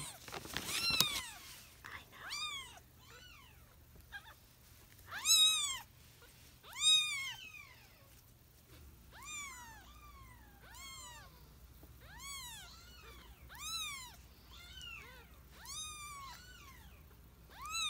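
A very young kitten mewing over and over, a string of high, arching cries about one a second, the loudest two about five and seven seconds in. A brief rustle of handling comes in the first second.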